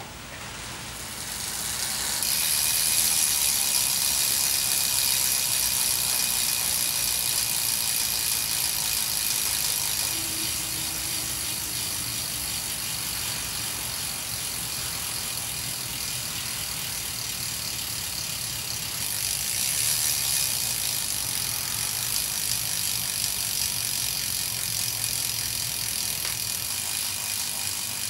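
2013 Mavic Ksyrium SLS rear hub freewheeling, its two pawls ticking rapidly and steadily over the ratchet as the rear wheel spins without pedalling. The ticking builds over the first couple of seconds, slowly eases, then grows louder again about two-thirds of the way through.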